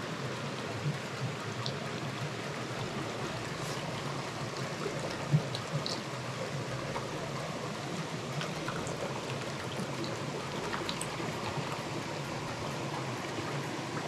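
Mountain stream running steadily over rocks, with a few small clicks, the sharpest about five seconds in.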